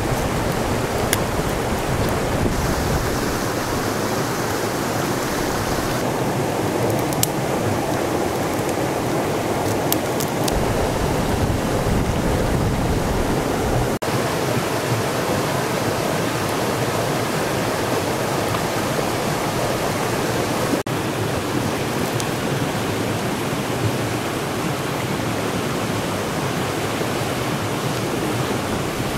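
Steady rushing of river water, with a few sharp clicks in the first ten seconds.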